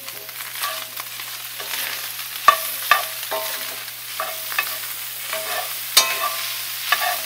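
Stainless steel spoon stirring ground beef and diced onions in a cast-iron skillet, scraping and clinking against the pan with short ringing knocks, the sharpest about two and a half seconds in and again at six seconds. Under it, the meat sizzles as it fries.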